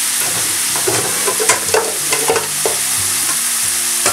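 Pork mince sizzling in a frying pan over a gas flame, stirred with a wooden spoon, which scrapes and knocks against the pan several times in the second half.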